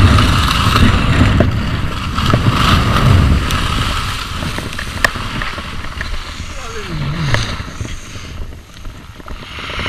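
Wind buffeting a helmet-mounted camera's microphone as a skier runs through fresh powder, with skis hissing through the snow; the rumble is heavy at first and eases after about four seconds. A short falling cry, like a voice, about seven seconds in.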